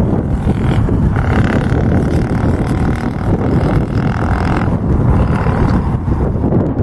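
Embraer E195-E2 airliner landing and rolling out: a loud, rough low rumble from its geared turbofan engines and the touchdown, with a steady engine whine coming in about a second in and fading away near the end.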